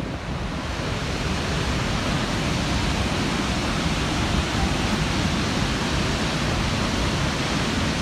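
Steady rushing of a large waterfall, an even wash of water noise with no breaks.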